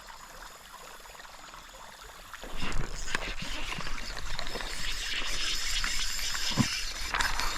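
Faint running creek water, then about two and a half seconds in, loud splashing and sloshing of water with many quick clicks over it.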